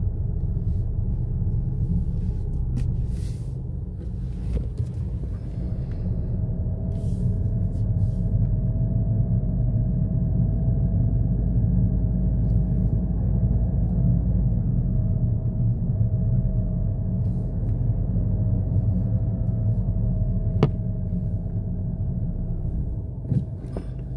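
A car running and rolling slowly, heard from inside the cabin: a steady low rumble with a faint wavering whine above it, and one sharp click near the end.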